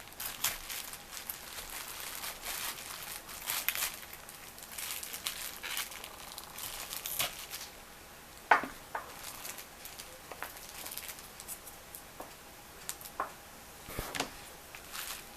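Fresh cauliflower being cut into florets: irregular crisp crackling and snapping of the stalks, with a sharp knock about halfway through and a lighter one near the end.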